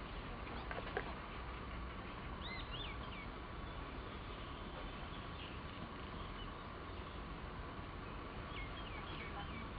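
Outdoor ambience: short bird chirps a couple of seconds in and again near the end, over a steady background hiss with a constant high thin hum. A single click about a second in.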